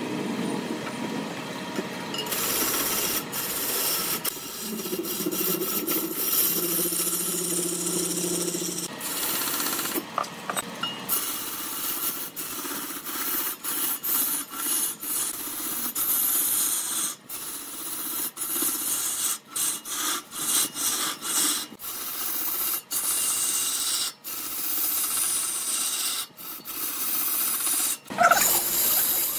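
A tool working spinning wood on a lathe: a continuous scraping noise, broken by many brief, abrupt gaps in its second half.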